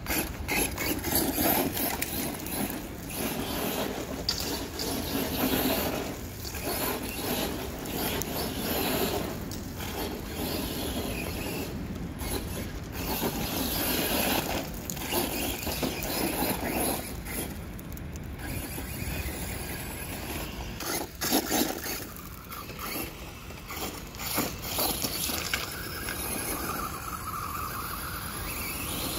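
Electric RC truck with a brushless motor driving hard over loose gravel: the motor whines in surges as the throttle comes on and off, with the tyres scraping and spraying stones.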